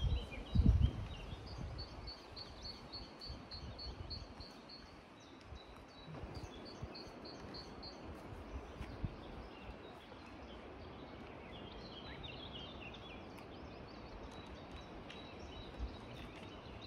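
Outdoor ambience with songbirds: rows of short high chirps, about four a second, repeat several times over a steady low hiss. A brief low rumble on the microphone, the loudest sound, comes about half a second in.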